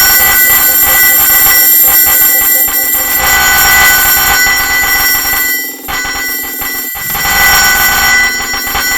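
Coin pusher medal game machine sounding its ringing, bell-like electronic jackpot jingles and tones, over a dense clatter of metal medals. The sound dips briefly a little past the middle.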